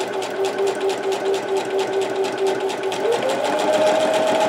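Singer Heavy Duty electric sewing machine running, its needle stitching through a sheet of paper with a fast, even clatter of strokes. About three seconds in, the motor's whine rises in pitch as the machine speeds up.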